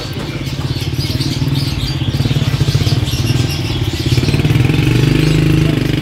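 An engine running with a fast, even pulsing beat, growing louder and loudest about five seconds in.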